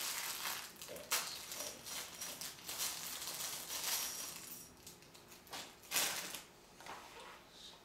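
Crinkling and rustling of plastic parts bags as Lego pieces are handled, with a few small sharp clicks of plastic pieces, loudest in the first six seconds and quieter near the end.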